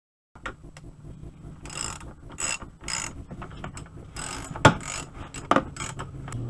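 Socket ratchet wrench clicking in a series of short strokes as bolts on an ATV winch mount are tightened, with two sharper metallic clicks a little over halfway through.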